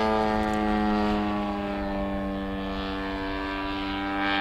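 A 1/3-scale Morane-Saulnier AI radio-controlled model airplane flying overhead, its engine and propeller making a steady drone. The drone fades a little in the middle and swells again near the end.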